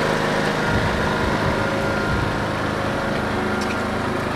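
Heritage diesel-hauled train of British Rail Mark 1 coaches moving slowly along a station platform: a steady diesel engine hum with a low rumble.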